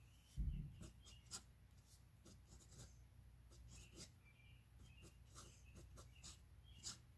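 Faint scratching of a Wahl fountain pen's nib across lined paper in short, irregular strokes as letters are written, with a soft low thump about half a second in.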